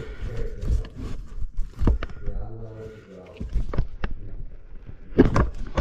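Knocks and handling clatter of a metal garbage-disposal sink flange being set into the sink's drain opening over plumber's putty, with the sharpest knocks near the end.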